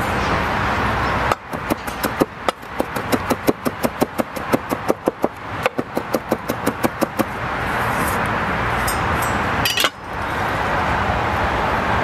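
Chef's knife rapidly chopping parsley on an end-grain wooden cutting board: a run of quick, even knocks, about five a second, that starts a little over a second in and stops around seven seconds.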